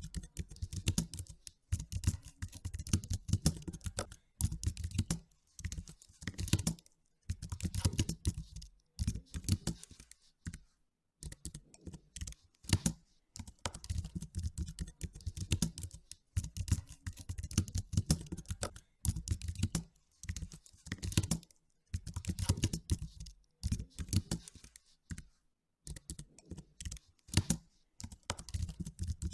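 Typing on a computer keyboard: quick runs of key clicks in bursts, broken by brief pauses of about a second.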